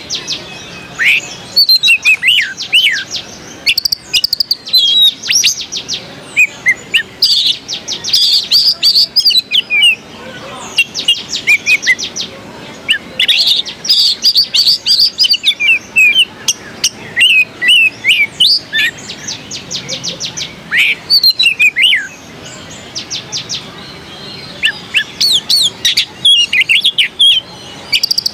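Oriental magpie-robin (kacer) singing loudly, a varied song of sliding whistles and fast runs of repeated notes, delivered in phrases with short pauses between them.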